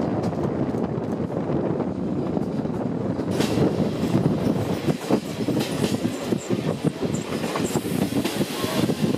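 Railway carriages rolling along the track, heard from a carriage window: a steady rumble of wheels on rails with scattered clicks from the rail joints. About three seconds in it turns brighter and hissier.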